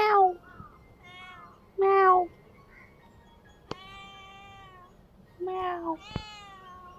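Domestic cat meowing repeatedly: several separate meows that fall in pitch, the loudest at the start and about two seconds in.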